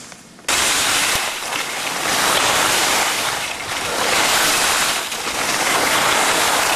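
Wind rushing over a camcorder's microphone, with the hiss of skis on snow, while the person filming skis downhill. It starts abruptly about half a second in and stays loud, rising and falling.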